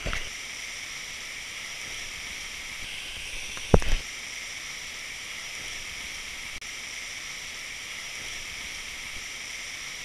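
Steady, muffled hiss of water with one loud splash about four seconds in: a person jumping into a waterfall pool.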